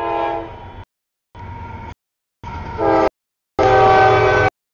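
Freight locomotive air horn sounding a chord over low train rumble, chopped into four short pieces with dead silence between them. The last piece is the loudest.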